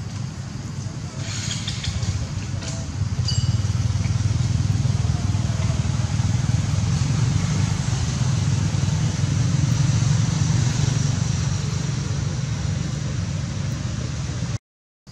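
Steady low outdoor rumble with a few brief high chirps about three seconds in, cutting off abruptly just before the end.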